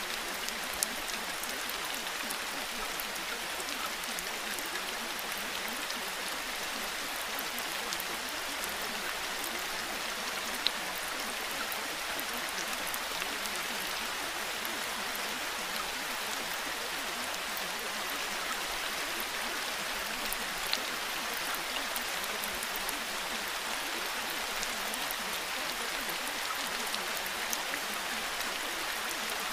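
Steady rain: an even hiss with scattered drop ticks, now and then a louder one.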